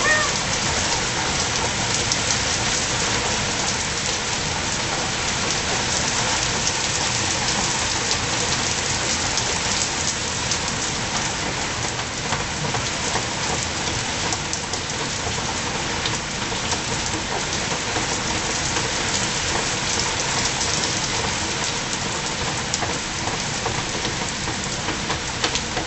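Heavy rain pouring down steadily onto wet stone paving, a dense, even hiss of splashing drops.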